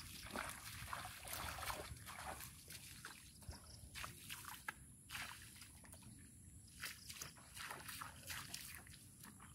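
Bare feet wading through shallow, muddy flood water: quiet, irregular splashing and sloshing steps.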